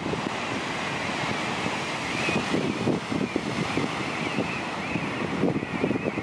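Wind buffeting the microphone in uneven gusts over the steady hiss of ocean surf.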